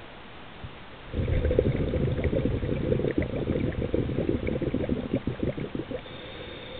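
Scuba diver's exhaled breath bubbling out of the regulator, heard underwater. A dense, low, crackling burst of bubbles starts about a second in and tapers off about a second before the end.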